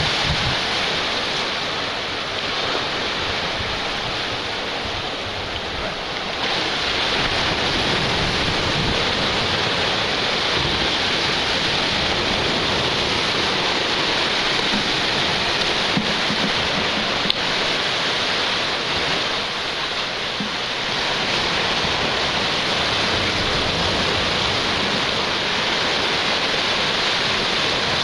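Sea surf breaking and washing against the boulders of a rock jetty, a steady rush that grows louder about six seconds in and eases briefly near twenty seconds.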